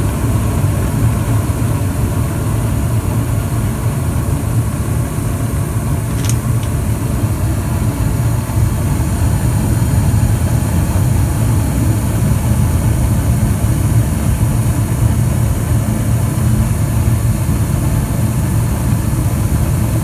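2003 Carrier gas furnace firing: the burners running with a steady low rumble, the new replacement inducer motor running smoothly along with them. A faint single click comes about six seconds in.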